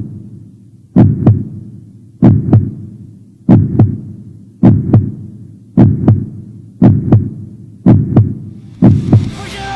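Heartbeat sound effect: loud paired low thumps, lub-dub, about once a second, each pair dying away before the next and coming slightly faster toward the end.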